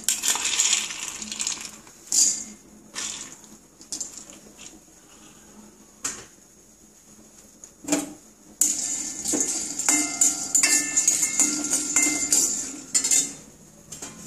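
Dried turkey berries rattling into a dry metal kadai, then a metal spoon knocking and scraping them around the pan as they dry-roast without oil. There are a few separate clinks at first, then steady scraping and clinking with short metallic rings from a little past halfway until near the end.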